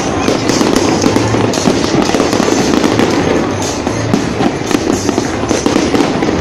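Fireworks display going off: a dense, unbroken run of many quick bangs and bursts.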